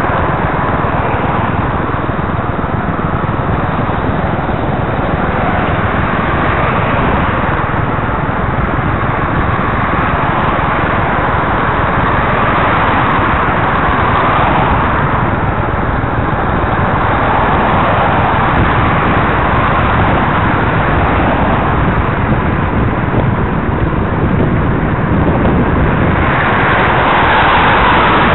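Road traffic passing alongside on a busy road, heard from a moving bicycle: a steady rush of tyre and engine noise, with cars swelling past every few seconds and the loudest pass near the end.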